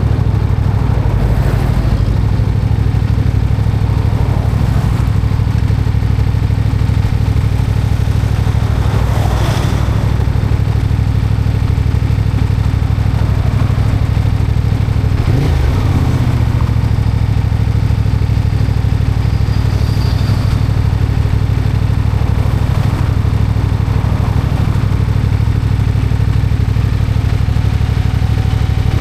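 CFMOTO 450MT's parallel-twin engine running steadily at idle, with a knocking sound in its running that the owner questions as possible engine knock.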